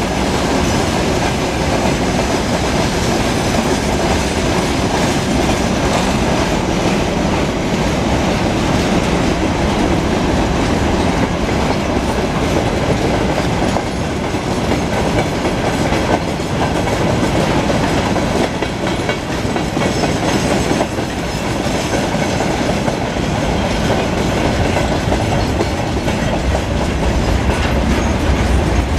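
Freight train wagons rolling past close by: a steady, loud rumble of steel wheels on rail, with repeated clatter as the wheels cross the rail joints.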